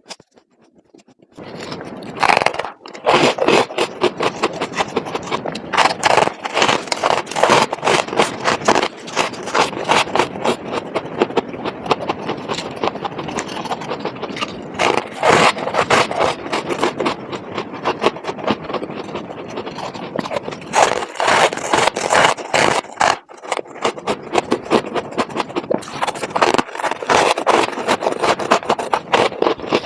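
Frost ice in a refrigerator freezer being scraped, in quick, loud, rough repeated strokes that start about a second and a half in.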